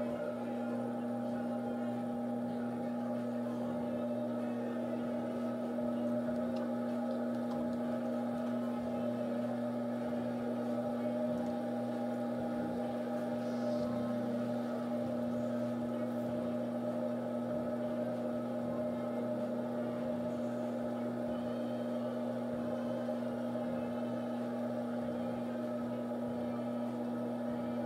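Electric potter's wheel motor humming steadily as the wheel spins under a clay vase being thrown.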